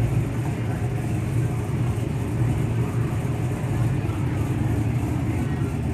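1976 Buick Electra Limited's V8 idling steadily, a low, even rumble.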